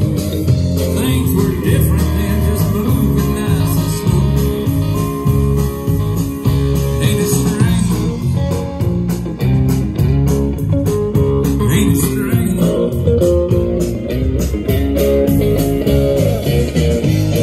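Live band playing loudly, with guitars over bass and a drum kit keeping a steady beat.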